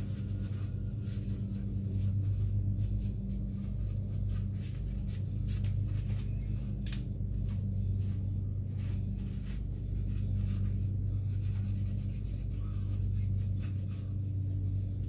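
Paper towel rubbing and scrunching against a stainless steel pistol part as it is wiped dry, in many short scratchy strokes, over a steady low hum.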